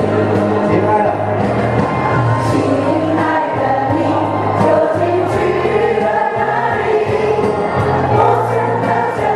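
Mixed choir of men and women singing together through stage microphones, over an accompaniment with a steady bass line.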